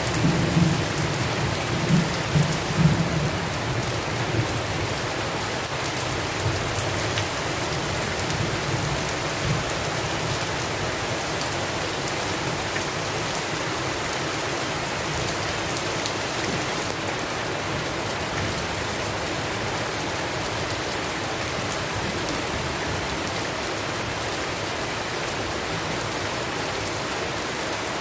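Steady heavy rain pouring down, with a low rumble of thunder in the first few seconds.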